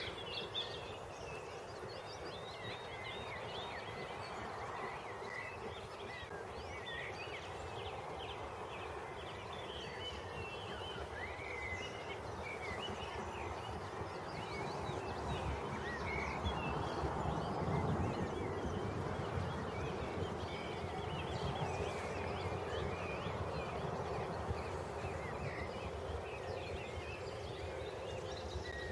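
Songbirds chirping over the low rumble of a Stanier Black 5 steam locomotive approaching slowly. The rumble grows louder about halfway through.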